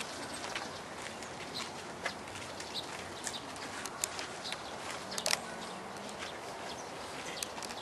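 Outdoor ambience of a watching crowd: a steady background hiss scattered with small clicks and short high chirps, with a sharper click about five seconds in.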